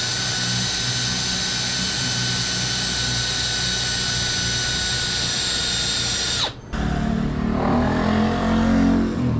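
Makita cordless drill running at steady speed as it bores through the wooden uprights, a high whine that winds down and stops after about six and a half seconds. After it, an uneven low rumble.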